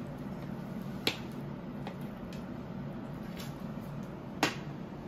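Metal fork and spoon clinking against a plate while cutting chicken: a few sharp clinks, the loudest about a second in and near the end, over a steady low hum.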